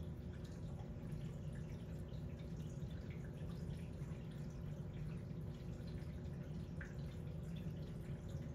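Aquarium water circulation: steady trickling with small scattered drips and splashes, over a low steady hum.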